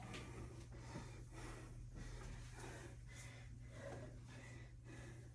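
A woman panting hard, out of breath from doing burpees, about two breaths a second. A steady low hum runs underneath.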